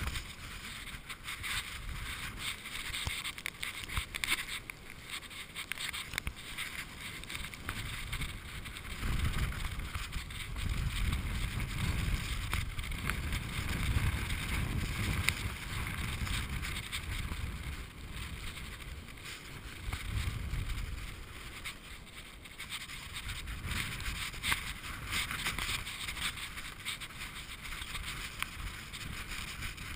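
Storm wind buffeting the microphone over a steady rush of seawater washing across flooded pavement. The wind rumble is heaviest through the middle stretch.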